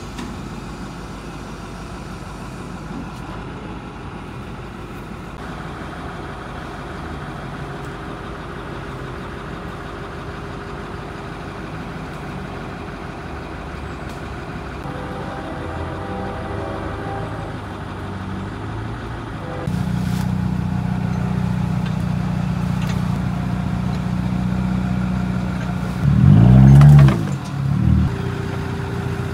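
A truck engine running steadily, getting louder about twenty seconds in. A few seconds before the end it is revved up sharply and let back down, followed by a shorter rev.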